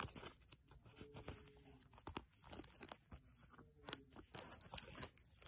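Thin plastic card sleeves rustling and crinkling as a trading card already in one sleeve is slid into a second sleeve, with scattered small clicks and taps and a sharper click about four seconds in.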